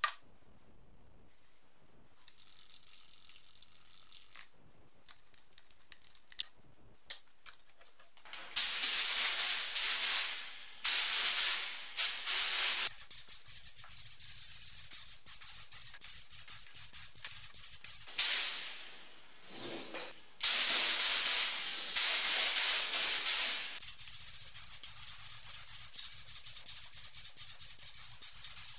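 A few light clicks and knocks as paint tins and a mixing cup are handled, then a compressed-air gravity-feed spray gun hissing in loud bursts of one to two seconds, about five times, as it applies black paint to a car's drive output shafts. A quieter steady hiss runs between the bursts.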